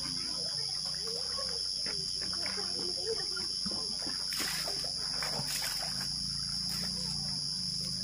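Water being scooped from a concrete tank and splashed over a bather, with a couple of splashes about halfway through, over a steady high-pitched insect drone.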